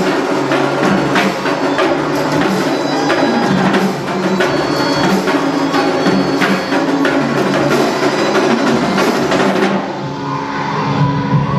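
Marching percussion, quad tenor drums and a snare-type drum struck with sticks, playing a quick rhythm over backing music. The playing thins out about ten seconds in.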